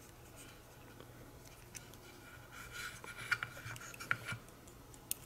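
Small plastic and metal fan-kit parts handled in the fingers: faint rubbing and light clicking, busier in the second half, with a couple of sharp ticks.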